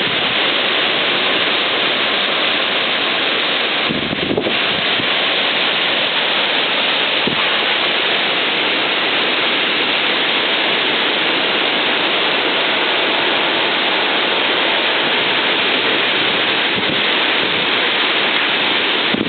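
Storm wind gusting at 40–45 mph, a loud, steady rushing hiss without a break.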